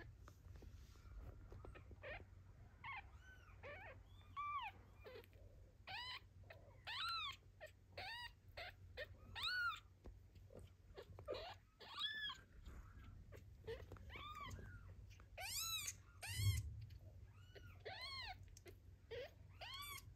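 Newborn kitten squeaking loudly for its mother: a long run of short, high calls, each rising and falling in pitch, one or two a second. These are the distress calls of a kitten left alone. A low bump sounds about two-thirds of the way through.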